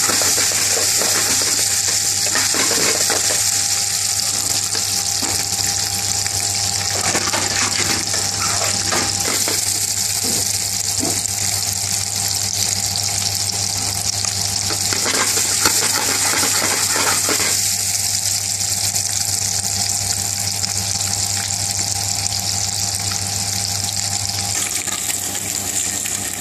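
Turmeric-coated hard-boiled eggs sizzling as they shallow-fry in oil in an aluminium frying pan, with a steady low hum underneath. A few bursts of clattering come as the pan is shaken and the eggs roll against it.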